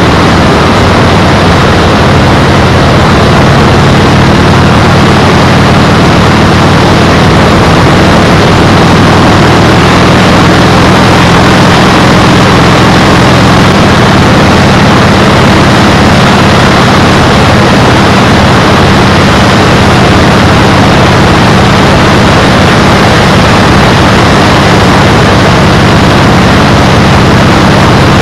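Loud, steady wind noise battering an action camera's microphone while riding a bike at speed, with a steady low drone underneath.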